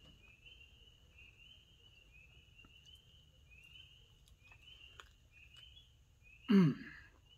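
Night chorus of short high chirps repeating about twice a second, with a faint steady high trill behind them. About six and a half seconds in, a man lets out one short vocal sound that falls in pitch, the loudest thing here.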